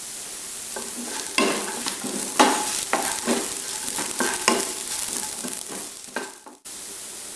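Crushed shallots, ginger, garlic, green chillies and curry leaves frying in coconut oil in a pan, with a steady sizzle while a spoon stirs and scrapes them in short strokes about twice a second. The sound cuts out briefly near the end, then the sizzle resumes.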